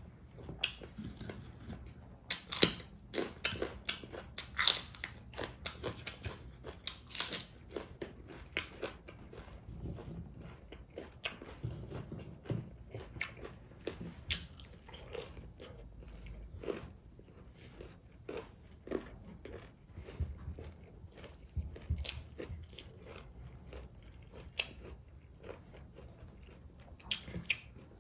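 A person chewing and biting food with many sharp, crunchy clicks, densest in the first nine seconds.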